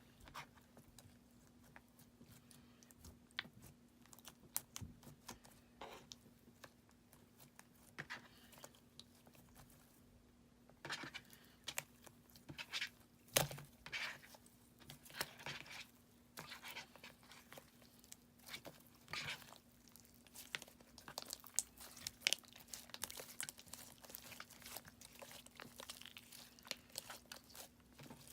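Clear slime being kneaded and stretched by hand as glitter is mixed in: faint, irregular sticky pops, clicks and crackles, sparse at first and busier in the second half, over a thin steady hum.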